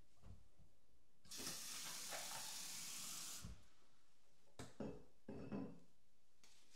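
Water running in a short stream for about two seconds and then shut off, followed by a few light knocks.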